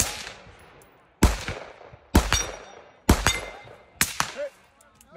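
Four gunshots about a second apart, each followed by a long echoing tail.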